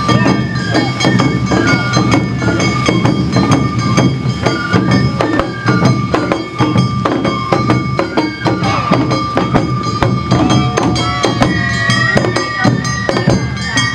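Awa Odori festival music: drums and metal gongs struck in a quick, steady rhythm, with a high flute melody holding long notes over it.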